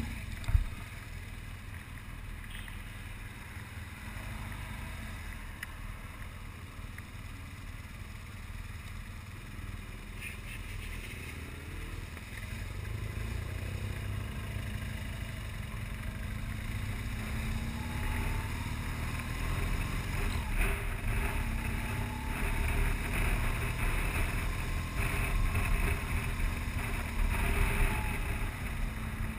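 BMW R1200 GS boxer-twin motorcycle on the move, its engine running under wind rush on the camera microphone. The rumble grows louder about halfway through, with the engine note rising and falling as the bike accelerates and eases off. There is a brief knock just after the start.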